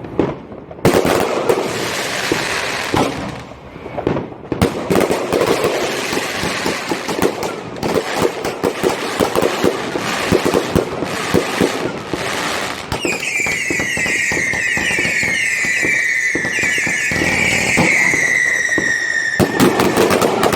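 New Year's Eve consumer fireworks going off in rapid succession, with many bangs and crackling. About two-thirds of the way in, a shrill whistling firework joins them, sliding slowly down in pitch for several seconds, and a burst of loud bangs follows near the end.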